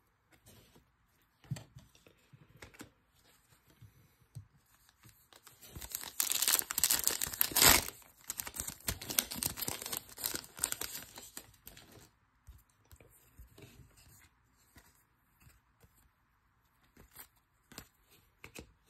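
A baseball card pack's wrapper being torn open and crinkled, loudest and densest about six to eight seconds in. Before and after it come fainter rustles and ticks of trading cards being handled and slid through the fingers.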